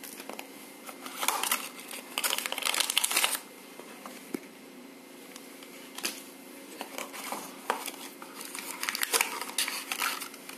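Packaging wrap crinkling and rustling as it is handled, in two bouts separated by a quieter stretch of a few seconds.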